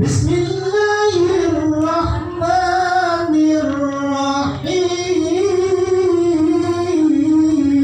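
A qori (Quran reciter) chanting a recitation, starting abruptly and holding long, wavering ornamented notes, in a voice the uploader calls ruined by coughing.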